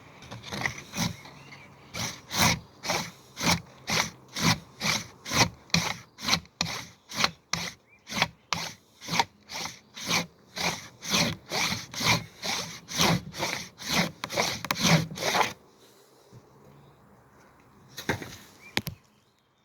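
Handsaw cutting through a tree trunk in steady back-and-forth strokes, about two a second. The sawing stops about fifteen seconds in, then a couple more strokes come near the end.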